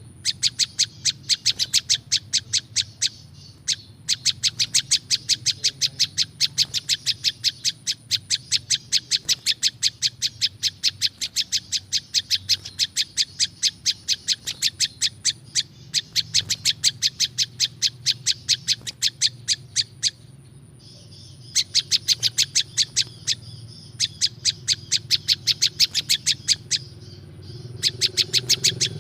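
Prinjak lumut calling: a fast, even series of sharp chip notes, about six a second, in long runs broken by short pauses.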